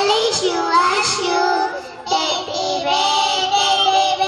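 Small children singing a song into a handheld microphone, in high voices, with a short break between phrases about two seconds in.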